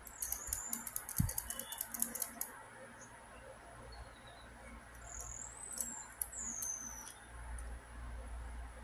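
LEGO Technic plastic parts clicking and rattling together in the hands for the first couple of seconds, with a dull bump about a second in. Then come a few short, high squeaks of plastic rubbing on plastic as pieces are slid into place.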